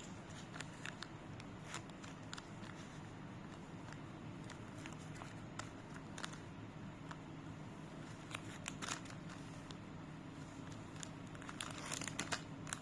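Small objects being handled: scattered light clicks and crinkles, with a quick run of them near the end, over a steady low hum.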